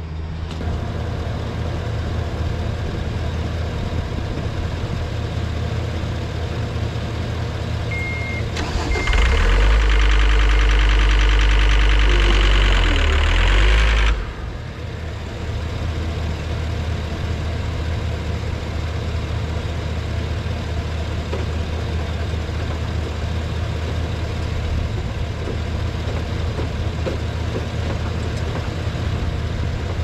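Deere 326D skid steer's diesel engine idling steadily after its broken-crankshaft repair, with a short beep about eight seconds in. For about five seconds in the middle it runs much louder with a heavy rumble, then settles back to idle.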